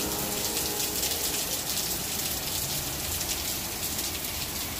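Heavy rain falling steadily on a paved parking lot, an even, dense hiss.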